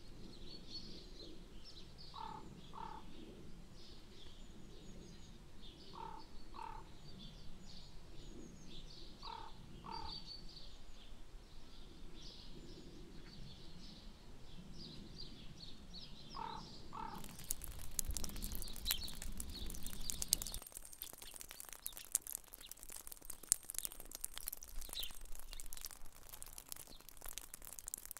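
Wild birds calling: small birds chirp high while one bird repeats a low double note every few seconds. About two-thirds of the way in this gives way to a dense, fine crackle of tiny ticks and clicks from melting ice and snow.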